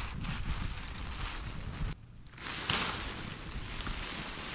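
Fabric of a pop-up ice-fishing tent rustling and flapping as it is unfolded and opened, with wind buffeting the microphone. There is a brief lull about two seconds in, then a louder rush of fabric noise just before three seconds.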